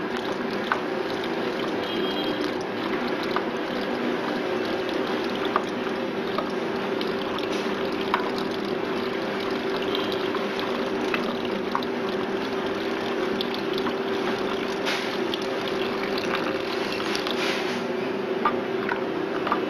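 Sodium hypochlorite poured in a thin stream from a glass beaker into a plastic bucket of effluent sample, over a steady low hum, with scattered light clicks.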